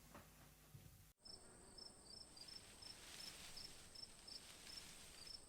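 Faint insect chirping, likely crickets: short high chirps about three a second over a steady high tone, starting about a second in.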